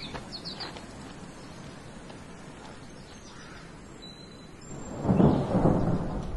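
Quiet ambience with a few faint chirps near the start, then a roll of thunder that swells loudly about five seconds in and keeps rumbling.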